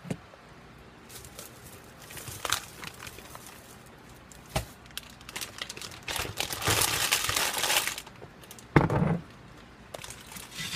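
Kitchen handling noises at a stove: a few sharp knocks and clatters, then about two seconds of rustling and crinkling, and a heavy thump near the end.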